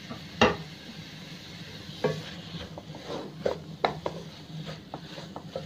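Wooden spatula stirring and scraping grated carrot halwa around a stainless steel pan, with one sharp knock against the pan about half a second in and a run of scrapes and knocks from about two seconds on.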